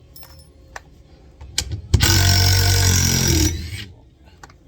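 Cordless DeWalt 20V Atomic subcompact impact driver run for about a second and a half, a steady loud motor-and-hammer sound that stops on trigger release. Before it come a few light handling clicks.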